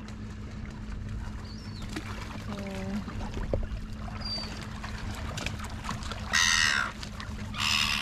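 Two loud, harsh silver gull squawks near the end, each about half a second long, over a steady background of lapping water around feeding Australian pelicans.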